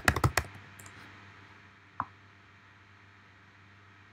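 Computer keyboard typing: a quick run of keystrokes at the start and one more key press about two seconds in, then only a faint steady room hum.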